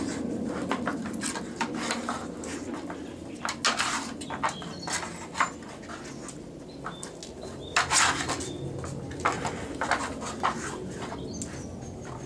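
A dog nosing and pawing at a wooden Dog Tornado puzzle toy to swing its layers open: irregular clicks and knocks of wood on wood. The loudest knocks come about 4 s and 8 s in.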